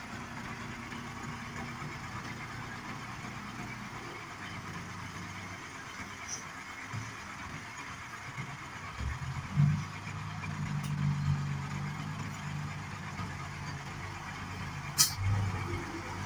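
Diesel dump truck engines running at idle, one revving up and holding higher from about nine seconds in before settling back. A short hiss near the end.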